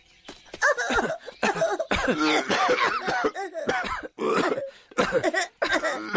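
Cartoon characters' voices coughing and spluttering over and over from the smoke, in short bursts close together, starting about half a second in.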